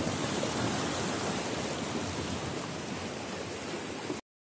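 Sea water washing and splashing among coral rocks: a steady rushing that slowly fades and cuts off suddenly near the end.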